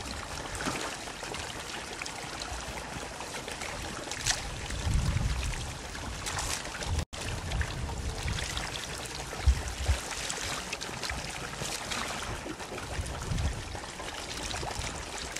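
Shallow pond water sloshing and splashing around a seine net as it is drawn in and small bluegills are lifted out of it by hand, with a few low rumbles.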